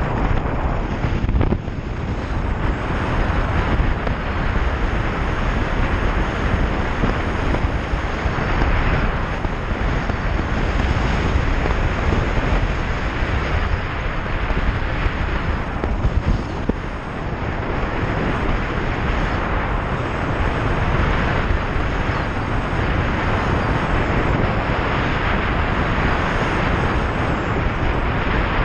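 Steady wind rush on the microphone of a moving motorcycle, mixed with the bike's running and road noise, dipping briefly about two seconds in.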